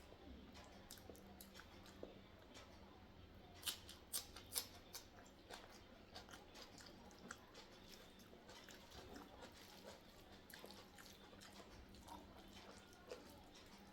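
Close-miked eating sounds of sambar rice with onion salad: faint chewing and soft wet mouth clicks throughout, with three sharper clicks close together about four seconds in.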